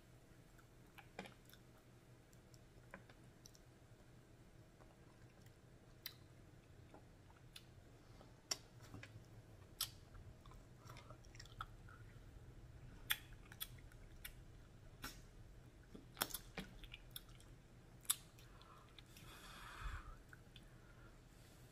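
Faint close-up chewing of black bean sauce noodles, with scattered wet mouth clicks and smacks and a brief louder noise near the end.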